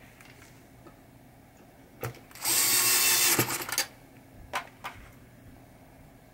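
DeWalt cordless drill/driver running for about a second, driving a screw into the pop bumper assembly, with a click just before and a few sharp clicks after.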